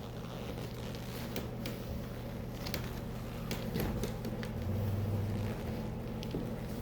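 A machine's steady low hum, with scattered light clicks and taps over it.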